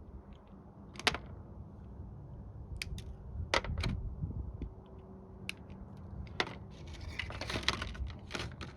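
Scattered sharp clicks and snips as small fuel-filter fittings are cut free and handled, with a denser stretch of plastic rattling and rustling near the end.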